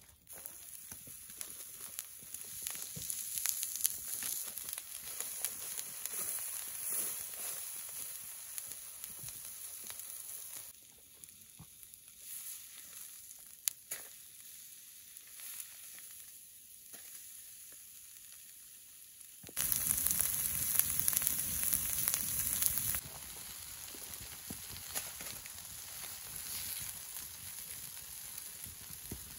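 Wood campfire crackling and hissing, with scattered sharp pops. The level steps up and down abruptly a few times and is loudest for a few seconds from about twenty seconds in.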